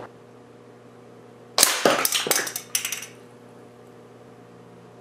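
A single-shot .177 air rifle firing once, a sharp crack about a second and a half in, then a few quick knocks and clatter as the struck plastic toy is knocked off the target board, all over by about three seconds in.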